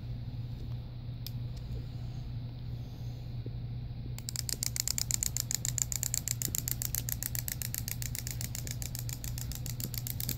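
Wind-up Easter chick toy's clockwork running as it walks, a rapid, even clicking that starts about four seconds in.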